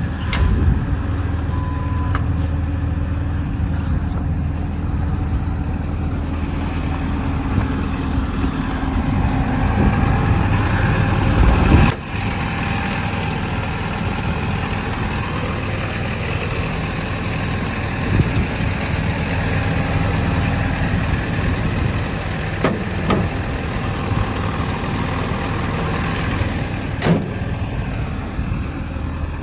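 Diesel engine of a Hitachi Zaxis 210 LC-6 hydraulic excavator idling steadily, with a few light knocks. The level drops suddenly about twelve seconds in.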